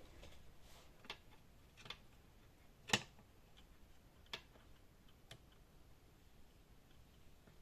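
A handful of light, separate clicks and taps from handling small laptop parts by hand, the loudest about three seconds in.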